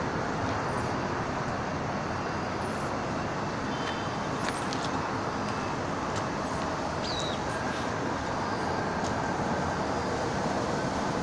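Steady outdoor hum of road traffic, with a few faint high chirps.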